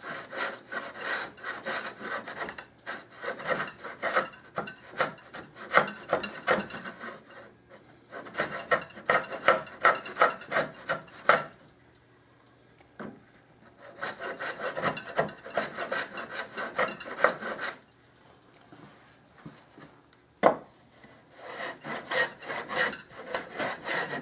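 Shop-made wooden skewed rabbet plane cutting a cross-grain rabbet in maple. It makes quick, short rasping strokes in runs of a few seconds with quiet gaps between them, and there is a single knock near the end.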